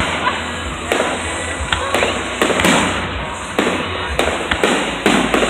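Fireworks going off in quick succession: a rapid series of sharp bangs, roughly two a second, with music playing underneath.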